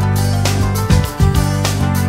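Instrumental background music with a steady beat and bass line.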